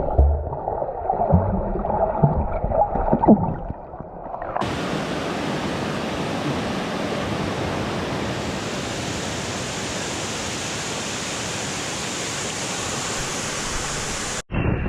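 Muffled, irregular water sloshing for about four and a half seconds, then an abrupt cut to the steady, even rush of a waterfall pouring into a rock pool.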